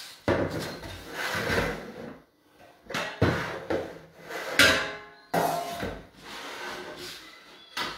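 Kitchenware being handled on a countertop: plastic and metal bowls and a stainless steel pan set down and shifted, giving irregular knocks and scraping, with one sharp knock a little past halfway.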